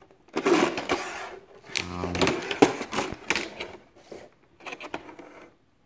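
Rigid clear plastic clamshell packaging crackling and rubbing as it is handled, with sharp clicks and snaps.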